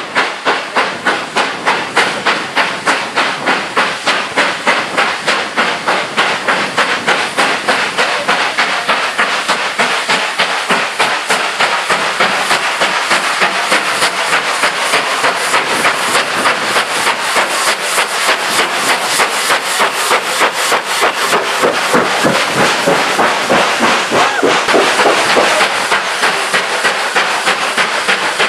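GWR Hall class 4-6-0 No. 4953 Pitchford Hall, a two-cylinder steam locomotive, working under steam with sharp, rhythmic exhaust beats. The beats quicken from about two or three a second to four or five a second as it comes closer, and they are loudest shortly before the end as it passes close by.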